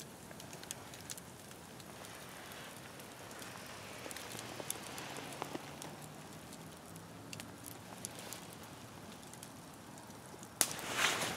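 Wood campfire crackling and hissing, with scattered small pops. Near the end a sudden louder rush of noise starts.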